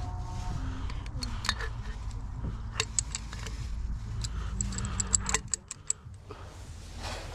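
Metal parts and tools clinking and jingling, many sharp chinks in the middle of the stretch, over a steady low hum that stops about five and a half seconds in.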